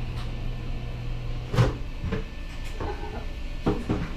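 Kitchen clatter at the stove: a few sharp knocks of cookware, the loudest about a second and a half in, over a steady low hum.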